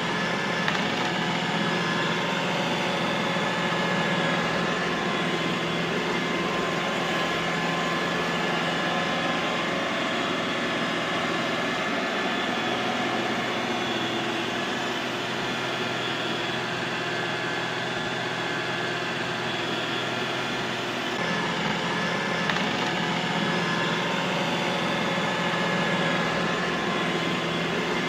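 Robot vacuum cleaner running: a steady motor whir with several steady hums. Its low hum weakens about twelve seconds in and comes back about twenty-one seconds in.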